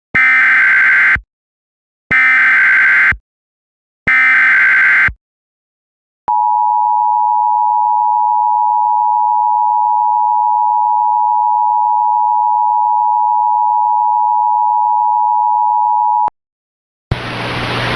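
Emergency Alert System tones: three one-second bursts of SAME data header, two seconds apart, encoding a tornado warning, then the two-tone EAS attention signal held steady for about ten seconds. Hissy broadcast audio starts just before the end.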